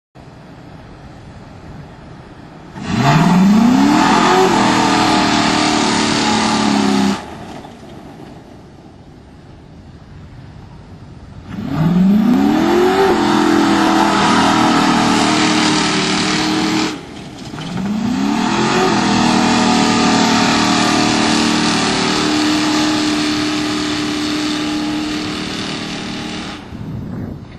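A 2002 Lincoln Town Car's 4.6-litre V8 running through an off-road H-pipe exhaust with no catalytic converters. It revs hard three times, each time climbing fast in pitch and then holding high revs for several seconds, and drops back to a quieter low run in between.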